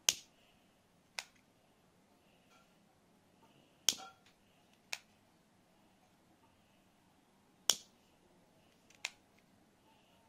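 Sharp clicks from a car-shaped metal pocket lighter as its top is pressed and released, in three pairs: a loud click, then a softer one about a second later.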